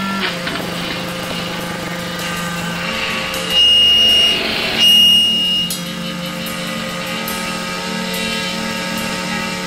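Electric guitar noise drone shaped through effects pedals: several held tones over a noisy haze, with two loud, high feedback squeals about four and five seconds in.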